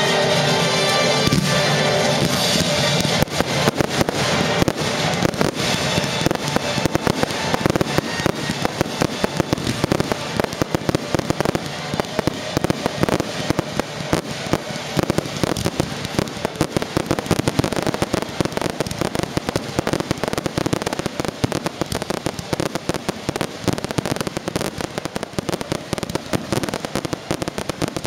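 Fireworks display: a dense, rapid barrage of shell bursts, bangs and crackling. Music accompanies it, fading out in the first two or three seconds.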